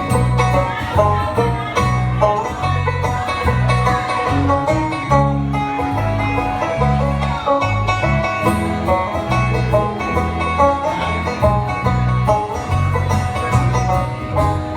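Bluegrass band playing an instrumental break: fast banjo picking with guitar over a steady bass line.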